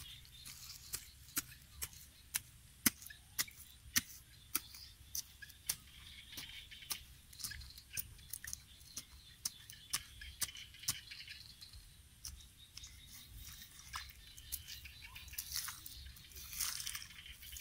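A regular series of sharp clicks, about two a second, that thins out past the middle, over faint rural ambience with high chirping.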